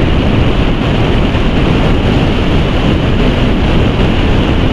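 Steady rush of wind over the microphone on a Bajaj Pulsar NS200 motorcycle cruising at speed, the bike's engine and tyre noise blended into it without change.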